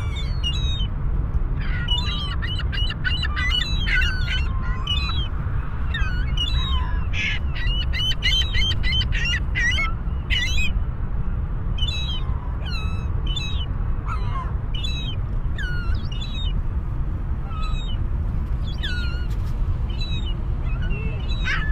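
Birds chirping in quick runs of short, sweeping calls, thick for the first half and more scattered later, over a steady low rumble.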